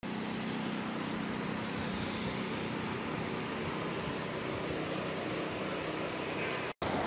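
Steady rushing noise of fast-flowing floodwater, cut off abruptly for a moment near the end.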